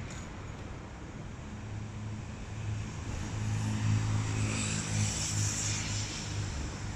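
A motor vehicle passing on a nearby road: a low engine hum and tyre hiss that swell toward the middle and ease off near the end.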